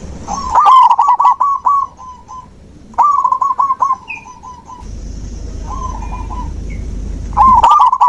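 Zebra dove (perkutut) cooing: phrases of quick, evenly repeated notes, about eight a second, each phrase lasting one to two seconds, four phrases in all, the third fainter. A low rumble runs under the second half.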